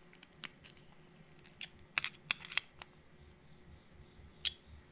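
A Phillips screwdriver turning a small screw back into a motorcycle gas cap lock's metal housing, making a handful of faint metal clicks and ticks, several in a quick cluster around the middle.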